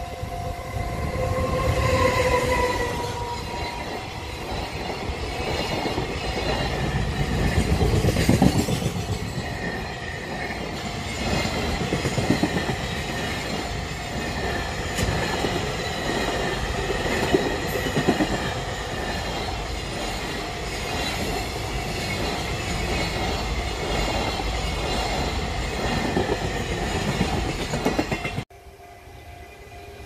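A JR Freight EF210 electric locomotive passes close by, with several steady tones that drop slightly in pitch about two seconds in. The long rake of container wagons then rumbles and clatters over the rails with irregular knocks. The sound cuts off suddenly near the end, leaving the quieter sound of another approaching freight train.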